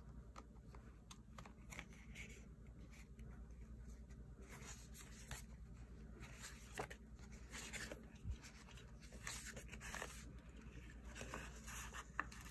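Faint rustling and light taps of sticker sheets and planner pages being handled, with a few short scratchy swishes of paper.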